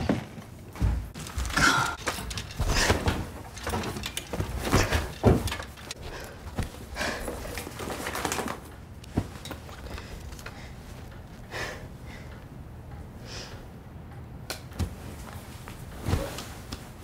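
Things being handled in a small room: a quick run of knocks, thuds and rustling over the first half, then quieter, with a few separate clicks and a soft thud near the end.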